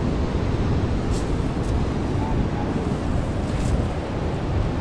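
Steady rushing of water pouring over a dam spillway, a constant low-heavy rush with no breaks.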